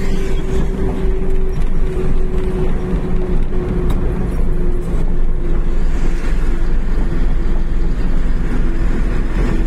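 Engine and road noise of a vehicle cruising steadily along a highway, heard from on board: a steady hum over a deep, even rumble.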